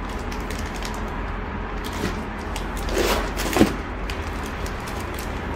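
Thin plastic packaging crinkling and rustling under hands pressing on a vacuum-packed cushion, over a steady low hum, with a louder rustle about three seconds in.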